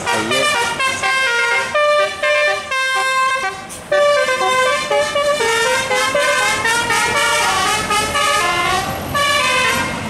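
Bus 'telolet' musical air horn playing a fast tune of changing notes, several notes a second, with a held chord about three seconds in.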